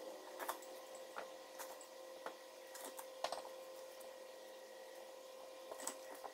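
Light, scattered clicks and taps from hand tools and a pump oil can being worked over an LS3 engine's rocker arms, about a dozen irregularly spaced, over a steady faint hum.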